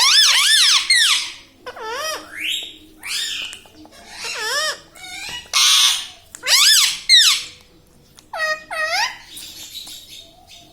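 Pet ringneck parrot talking and chattering in a high, shrill voice: a string of short phrases, each swooping up and down in pitch, many in pairs, with a harsh screech about six seconds in.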